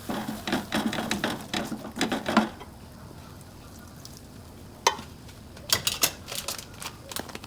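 Utensil stirring and scraping in a pan on low heat, mixing flour and milk into butter-sautéed onion and garlic, with some sizzling. The stirring is busy for the first two and a half seconds, then drops to a few scattered scrapes and clicks.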